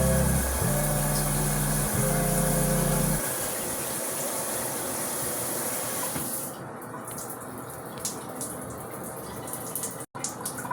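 Water spraying steadily from a newly fitted rain shower head, a broad hiss. It turns duller about six and a half seconds in.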